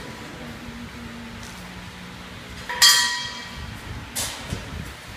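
A sharp metallic clink with a brief ringing about three seconds in, followed a second or so later by a few weaker knocks, over a low steady hum.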